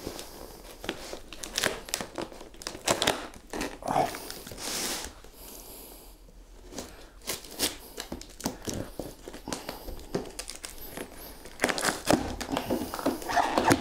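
Cardboard shipping box being opened by hand: security tape crinkling and tearing, with scrapes and rustles on the cardboard and a short lull about six seconds in.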